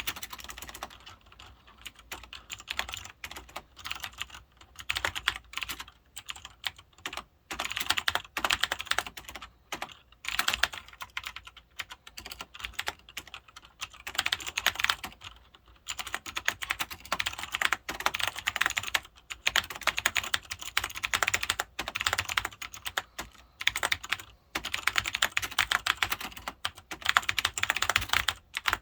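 Cherry G80-3000 mechanical keyboard with clicky Cherry MX Blue switches being typed on in fast bursts of key clicks, with brief pauses between runs.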